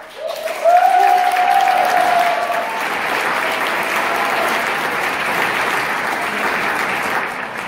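Audience applauding and cheering, with one long whoop from a single voice over the clapping during the first couple of seconds.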